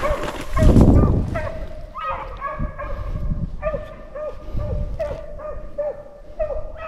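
A pack of beagles baying on a swamp rabbit's trail, in full cry. Several hounds give short, overlapping howling yelps at different pitches, about two a second. A burst of low rumbling noise comes about a second in.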